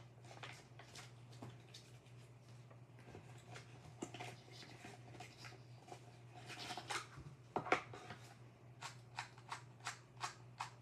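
Paper instruction leaflet and cardboard packaging handled with soft rustles and knocks, then a quick run of plastic clicks, about three a second, as a new 2x2 puzzle cube is turned; the cube is stiff and tight.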